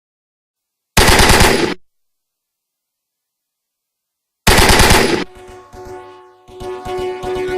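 Two short bursts of rapid automatic gunfire, each under a second long, about a second in and again about four and a half seconds in, with dead silence between. Music with a held tone and a pulsing beat follows the second burst.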